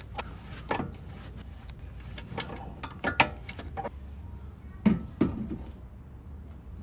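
Metal clinks and knocks of a coilover spanner wrench turning the threaded spring perch on a BMW E36 M3 front coilover, raising it. The strikes come irregularly, with the sharpest knocks a little after three seconds and near five seconds in.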